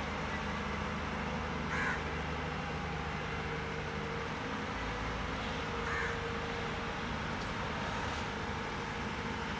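Excavator's diesel engine running steadily in the background, with two short calls, like a crow's caw, about two and six seconds in.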